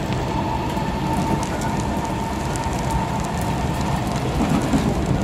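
Heavy rain mixed with the steady running noise of an SMRT East West Line train, heard from inside a carriage. A steady high hum holds over the rumble, with scattered sharp raindrop ticks, and the rumble grows louder near the end.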